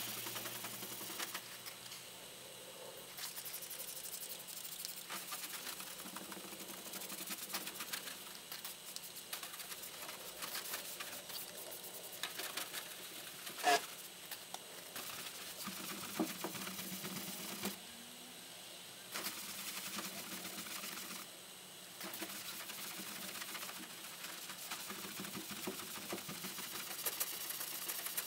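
Scratchy rasping and rapid small clicks of scrubbing, stopping briefly twice, with one sharper click about halfway through.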